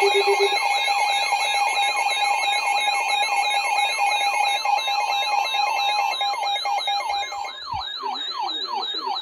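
Several weather alert radios sounding their alert alarms at once: a siren-like tone sweeping down over and over, about three times a second, over steady and pulsing beep tones. The alarms signal an incoming warning; the beeps cut off about three-quarters of the way through while the siren tone carries on.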